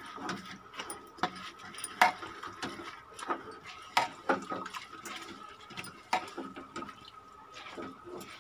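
A spatula stirring and scraping soaked rice, dal and vegetables in a metal pressure cooker: irregular knocks and scrapes against the pot, with a wet, squelchy mixing sound.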